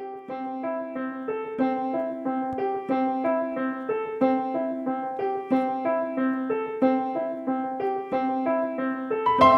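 Background piano music: a melody of evenly paced notes over a steadily repeated low note, growing fuller and louder near the end.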